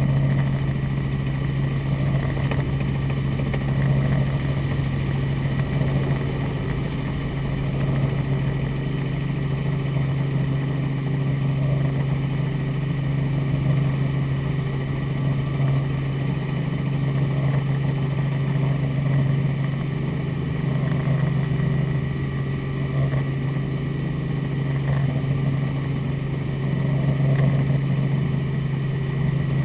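Robinson R44 Raven II helicopter heard inside the cabin: its Lycoming IO-540 six-cylinder engine and main rotor running with a steady, even drone.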